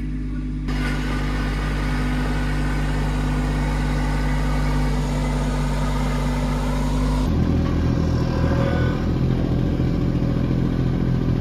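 Compact tractor's diesel engine running steadily. About seven seconds in, the sound changes to a rougher, slightly louder run.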